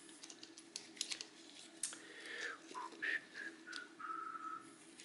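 Faint clicks and light knocks of a timing belt tensioner being worked onto its mounting stud by a gloved hand, with a few short squeaks in the second half.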